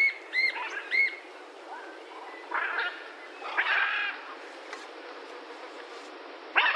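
Macaw calling: three short, arched squawks in quick succession in the first second, then two harsher, noisier calls about two and a half and four seconds in, and another loud squawk at the very end.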